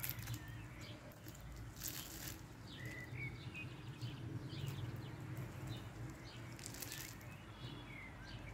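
Crisp fried sfenj dough being torn apart by gloved hands, giving a few short crackling rustles. Small birds chirp faintly in the background over a low steady hum.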